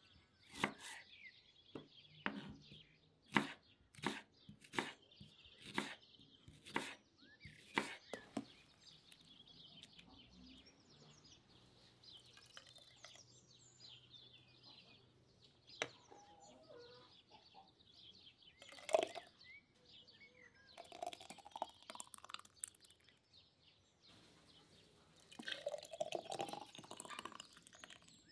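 Kitchen knife cutting through an onion onto a wooden cutting board: about ten sharp chops, roughly one a second, over the first eight seconds. Later, birds chirp faintly, and near the end thick sauce is poured from a jug into glass jars, the pouring rising in pitch as a jar fills.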